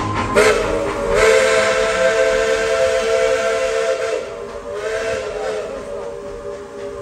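Steam whistle of East Tennessee & Western North Carolina 4-6-0 No. 12, a 1917 Baldwin narrow-gauge locomotive, blowing one long blast of several notes at once over a hiss of steam. It weakens briefly a little past the middle, then sounds again.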